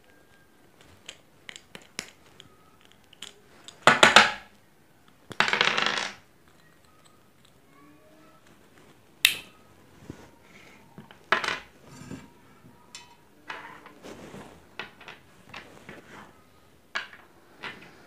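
Small plastic parts of a push-button thermos cap being handled, pulled apart and set down on a wooden table: scattered light clicks and knocks, with two louder clattering noises of under a second each, about four and six seconds in.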